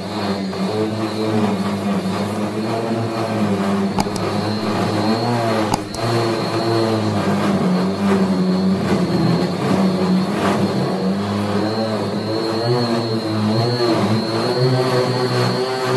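Battery-powered random orbital sander running steadily while sanding the painted steel top of a filing cabinet. Its motor hum wavers a little in pitch as it is pressed and moved over the metal, over a steady high whine.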